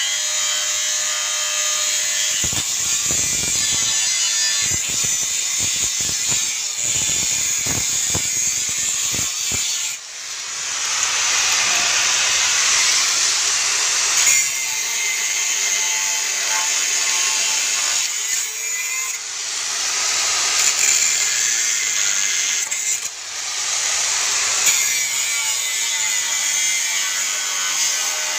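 Bosch GWS 060 angle grinder running continuously, its cutting disc grinding into steel angle iron. For the first third the cut sounds rough and chattering; after that it gives a brighter, hissing grind, with a brief dip in the sound about three times as the disc is eased off and pressed in again.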